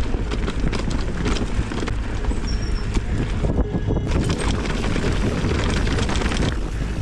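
Wind buffeting the microphone with a steady low rumble while riding a bicycle, with scattered clicks and rattles through it.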